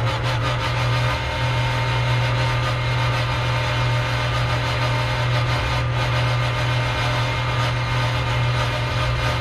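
Porsche 911 GT3 R race car's flat-six engine running at a steady, unchanging pitch as the car rolls slowly down the pit lane, heard from inside the cockpit.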